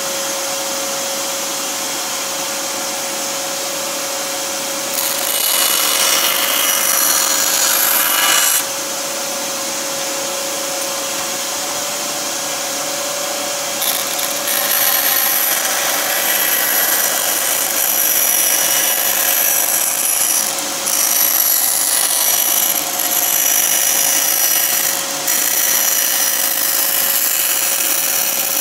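Benchtop bandsaw running with a steady hum, its blade cutting through thin plywood to rough out a gusset. One cut runs from about five to eight and a half seconds, and longer cutting starts about fourteen seconds in, broken by a few short pauses.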